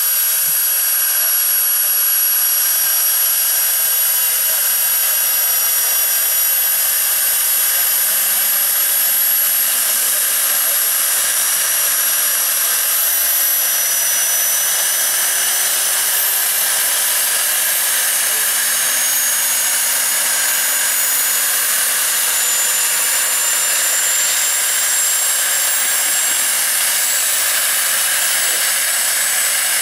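The small gas turbine engine of an RC-scale Bell 206B JetRanger III helicopter model runs on the ground during spool-up. It makes a loud, steady rushing hiss with a high whine that slowly climbs in pitch as the main rotor picks up speed.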